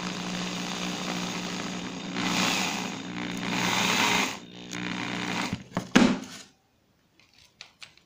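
Electric drill running and boring a hole through a small polyurethane bushing from a washing-machine suspension rod, with a steady motor whine that grows louder and harsher twice as the bit cuts in, about two and four seconds in. The drill stops about six and a half seconds in, right after a sharp knock, and a few light clicks of tools being handled follow.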